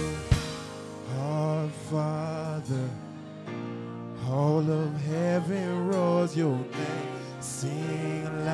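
Live gospel worship music: a man sings long, wavering held notes and runs without clear words over steady sustained chords. A single sharp thump sounds just after the start.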